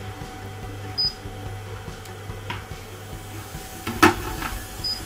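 Cecotec Mambo kitchen robot's control panel giving short high beeps as its knob is set, about a second in and again near the end. About four seconds in, the lid knocks onto the steel mixing jug with a few smaller clicks after it. A steady low hum runs underneath.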